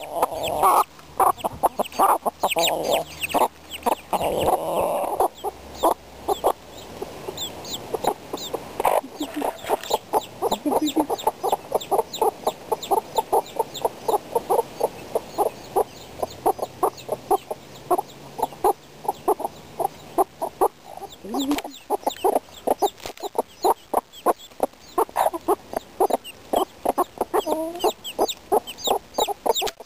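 Domestic hens clucking in a long run of short, quick clucks, several a second, with high little peeps from chicks.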